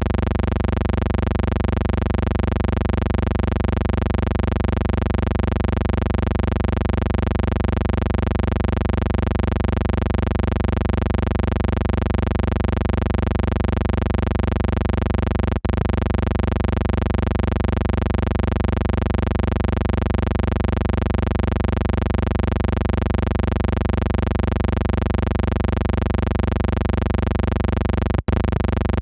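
Steady electrical hum on the soundtrack of a silent film transfer: one unchanging tone with many overtones over a low rumble, cutting out for an instant twice, about halfway and near the end.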